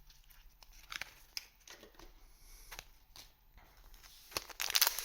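Trading cards being handled and flipped through by hand, with soft clicks and rustles of card stock. A louder papery rustling comes near the end.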